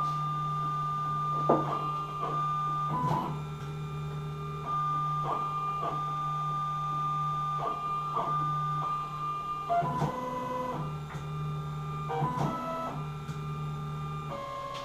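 CNC-converted Sieg X2 mini mill running its program in the air above the workpiece: the axis stepper motors whine in steady tones that change pitch or stop every second or so as each move changes.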